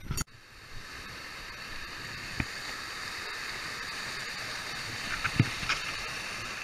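Steady rushing of a stream pouring over rock slabs in a small cascade, with two short knocks about two and a half and five and a half seconds in.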